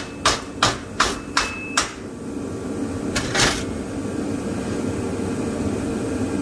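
Hammer blows on a TIG-welded aluminum test piece: six quick, evenly spaced strikes, then two more about three seconds in. This is a break test of the weld.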